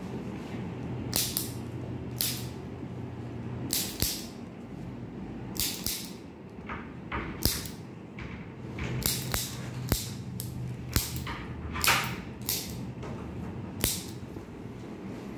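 Rustling and brushing of clothing and body movement during a chiropractic treatment: about fifteen short, uneven swishes with a few light clicks, over a steady low hum.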